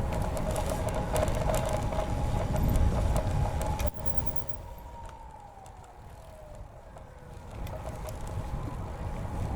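Riding noise of a road bike on a paved path: wind and tyre rumble with a steady whine. About four seconds in the noise drops away suddenly, a tone glides slowly down, and then the riding noise builds back up.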